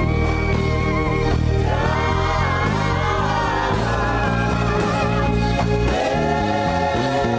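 Gospel worship music: voices singing long held notes that slide in pitch, over a steady instrumental backing.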